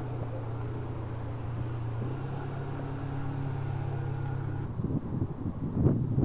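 Steady low motor hum, like an engine running, that shifts slightly in pitch about two seconds in, then gives way to louder irregular knocking and rustling near the end.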